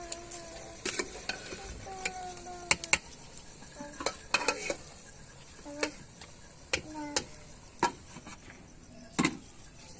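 A spoon stirring food that sizzles in a cooking pot, clinking and scraping against the pot again and again over a steady frying hiss.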